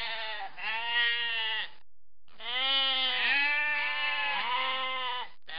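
Sheep bleating: long, wavering bleats, one after another at first, then several animals at different pitches overlapping after a short pause about two seconds in.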